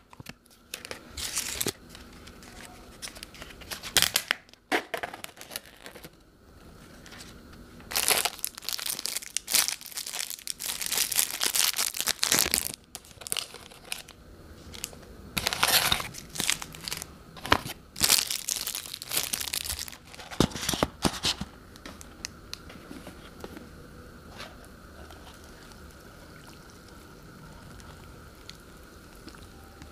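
Plastic sachets and the paper lid of Omachi instant-noodle cups crinkling and tearing in irregular bursts as they are peeled and ripped open. For about the last third, water from an electric kettle pours steadily into the cups.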